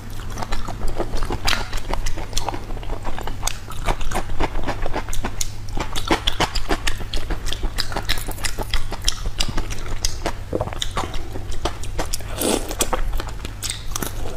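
Close-miked biting and chewing of whole marinated shrimp, the shells crunching as a dense stream of sharp, irregular crackly clicks.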